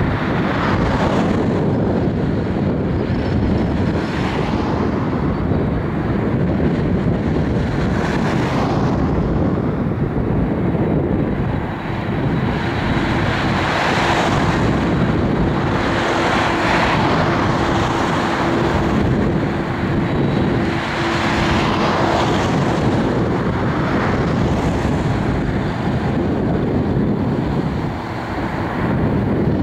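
Boeing 767 twin jet engines running as the airliner taxis at low power, a continuous jet rumble and hiss, with wind buffeting the microphone in repeated gusts.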